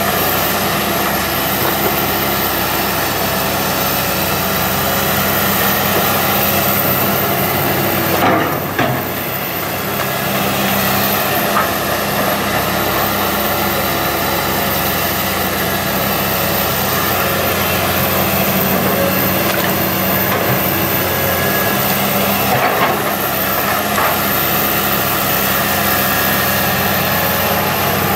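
Komatsu PC160 hydraulic excavator's diesel engine running steadily under load while it spreads mud, with a few short knocks from the machine about a third of the way in and again near the end.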